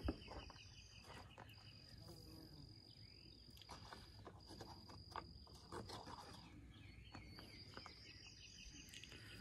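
Faint insects calling: a steady high-pitched buzz that stops and starts several times, and bouts of rapid pulsed chirping near the start and near the end. A few faint clicks and taps of handling come through.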